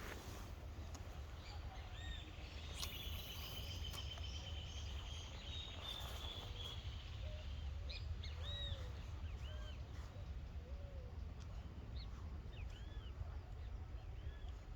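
Birds calling: scattered short, arched chirps, some high and some lower, with a trilling call about three to six seconds in, over a steady low rumble.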